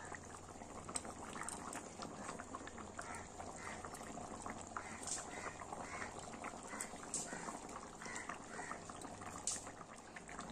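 Curry boiling in an aluminium kadai, bubbling and popping steadily.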